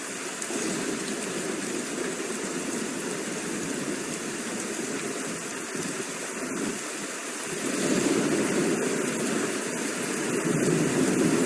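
Steady rain falling, with a low rumble of thunder that swells and grows louder in the second half.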